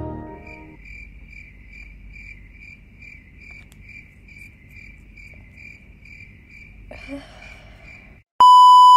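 Crickets chirping, a faint, even chirp about three times a second: the 'crickets' sound effect for an awkward silence. Near the end it is cut off by a short, loud censor bleep.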